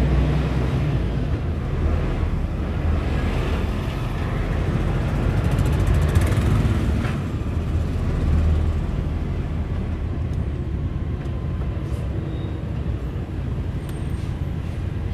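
Heavy lorry's diesel engine running at low road speed, heard from inside the cab as a steady low rumble with tyre and road noise.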